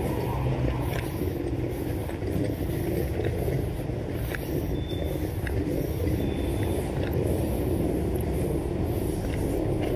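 City street noise: a steady low rumble of road traffic. Over it come faint, even scuffs about twice a second, from footsteps walking along the pavement. Two brief high peeps sound about halfway through.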